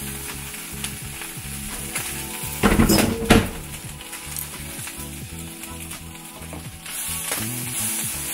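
Spinach and bacon sizzling in olive oil in a frying pan as they are stir-fried. Two louder bursts of noise come close together about three seconds in, and the sizzle grows louder near the end.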